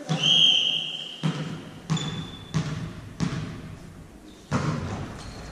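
A referee's whistle blows once for about a second, the volleyball referee's signal for the serve. Then a volleyball is bounced on the sports-hall floor: four thumps about two-thirds of a second apart, and one more near the end.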